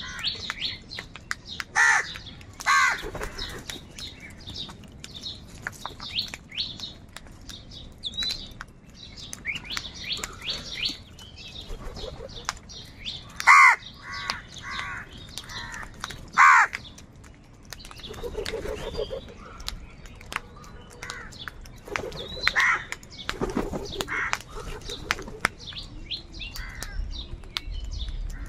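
Many crows cawing. Loud harsh caws stand out now and then over a continuous chatter of shorter calls.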